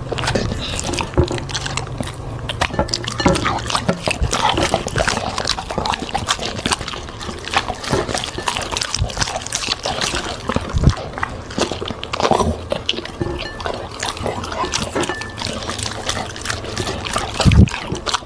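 Dog eating vegetables: wet chewing, lip smacking and many small irregular crunches.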